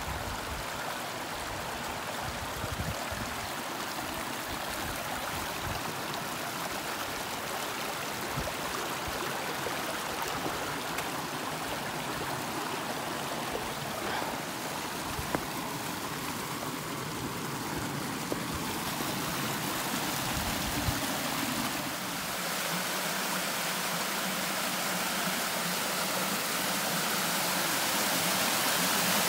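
Shallow woodland stream rushing and splashing over rocks in a steady hiss, growing gradually louder as a small waterfall cascading down a rock chute comes close near the end.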